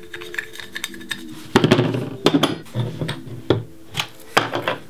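A blunt metal knife scraping silicone off an 18650 lithium-ion cell, then cells clacked down onto a table: a string of short scrapes and sharp clicks, loudest about a second and a half in. Faint background music with steady tones runs underneath.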